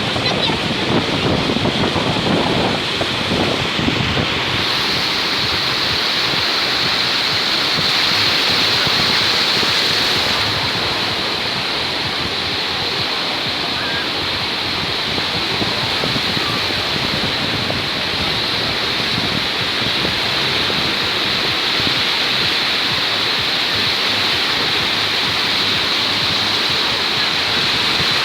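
Black Sea surf washing on a beach: a steady wash of wave noise, mixed with wind on the microphone. A steady high hiss joins in about five seconds in.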